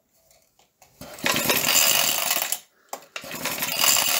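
A vintage Suffolk engine cranked over twice on its pull-start, each pull a fast rattling whirr of a second and a half, with a short break between. The engine does not fire: no spark jumps at the grounded plug.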